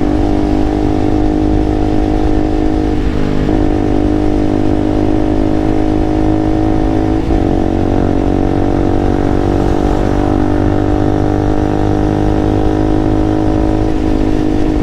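KTM motorcycle engine running at a steady cruising speed, heard through a helmet-mounted lavalier mic, with low wind rumble underneath. The engine note shifts briefly twice.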